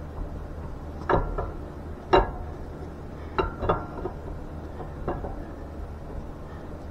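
Steel roller camshaft being slid by hand into the engine block's cam bearings, its lobes and journals clinking against the bearings and block about six times, a few of the knocks with a short metallic ring.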